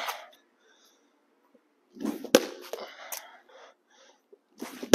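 Weighted plyo balls: a sharp smack about two seconds in and a louder one at the very end as a thrown ball hits the concrete wall, with scuffing noise around them.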